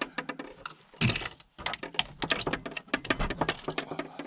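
Rapid, irregular clatter of small knocks and clicks, starting about a second in and stopping near the end.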